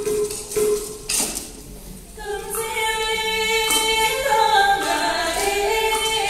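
Live traditional Vietnamese theatre music: a few sharp hits over a held note, then from about two seconds in, several women singing a melody together.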